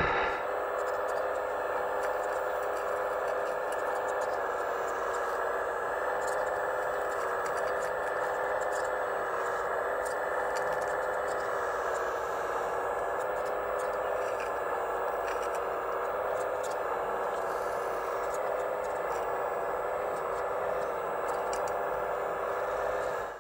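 Steady whine of a scale RC hydraulic excavator's hydraulic pump running, unchanging in pitch, with faint scattered ticks on top.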